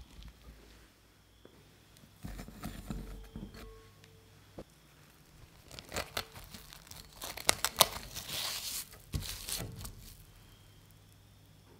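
Plastic cling film crackling as it is handled and pressed over a glass mixing bowl. The crackling comes in a cluster in the second half, loudest about eight seconds in, with a few light knocks on the bowl and table earlier.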